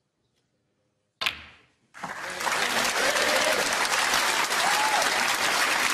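A single sharp click of snooker balls about a second in, then a snooker crowd breaking into loud, sustained applause, greeting the century break.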